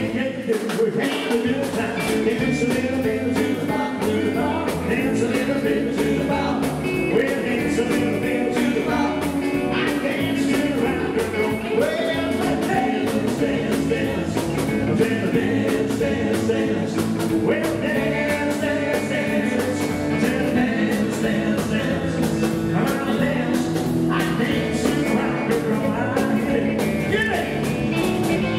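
Live rock 'n' roll band playing: electric guitar and drum kit, with a man singing lead.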